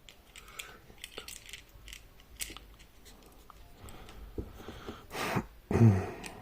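Small clicks and taps of tools and tiny parts being handled while a smartphone is reassembled, with a short swish and a louder brief sound near the end.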